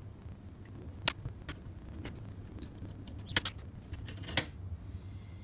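Sharp metal clicks and clinks of small steel parts being worked by hand: spring washers coming off the end of a shaft and the shaft being pulled out of a mower's clutch fork on its steel deck plate. A handful of separate clicks, the loudest about a second in and another near four and a half seconds, over a low steady hum.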